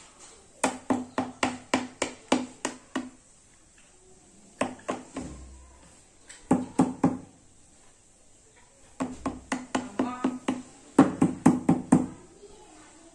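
Rhythmic drumming, hand-tapped hollow knocks with a low ring, about four strikes a second, played in five short runs with pauses between them.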